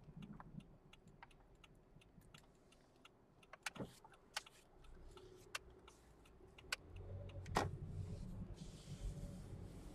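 Faint sounds inside a moving car: scattered light clicks and ticks. About seven seconds in, a low engine and road rumble comes up as the car pulls through a right turn.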